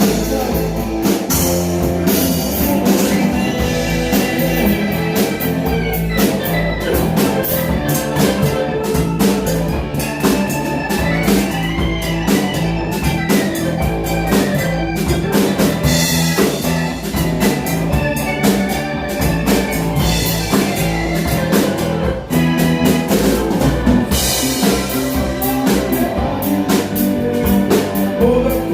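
Instrumental stretch of a band playing a pop/rock song: drum kit keeping a steady beat under guitar.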